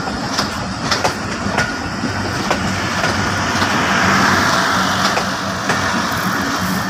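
Pakistan Railways passenger coaches rolling past as the train pulls out of the station: a steady rumble and rush of wheels on rail, with wheels clacking over the rail joints every half second or so. The noise swells a little about four seconds in.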